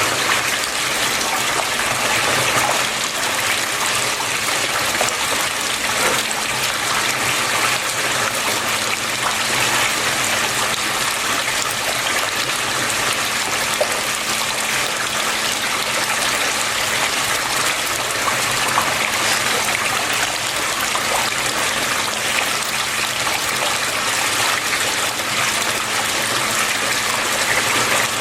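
Water flowing and splashing steadily, an even rushing sound with no breaks, over a faint steady low hum.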